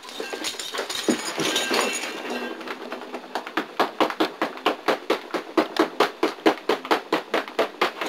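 Rapid, even taps, about four a second, starting about three seconds in and growing louder.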